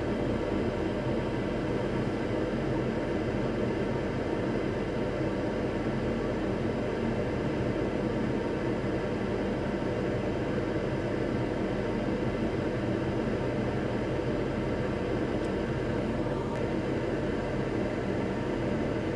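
Steady whir of microsoldering bench equipment fans, with a constant hum underneath and no change throughout.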